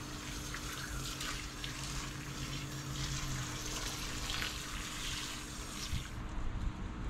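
Water pouring from a garden hose watering wand into a terracotta pot of potting soil. It is a steady rush that stops about six seconds in.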